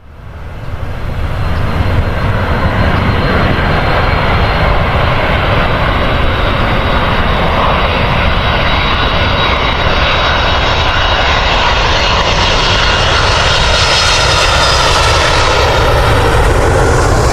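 Airliner engines running loud and steady, with a faint high whine over a broad rush of noise that grows brighter toward the end. The sound fades in over the first couple of seconds.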